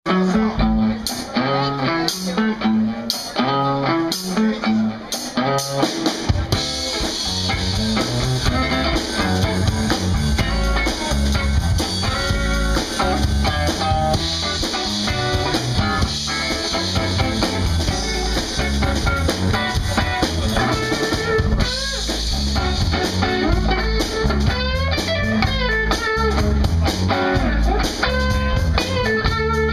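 Live blues band playing an instrumental intro on electric guitar, bass and drum kit. The opening is guitar-and-drum stabs in an even rhythm, and the bass and full drum groove come in about six seconds in.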